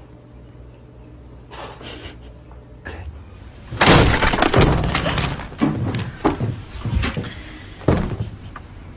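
A loud crash like something breaking, about four seconds in, followed by four or five sharper clattering knocks.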